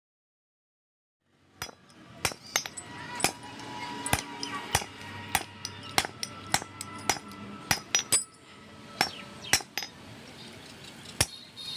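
A hammer striking metal over and over, roughly two blows a second, each with a short metallic clink and ring.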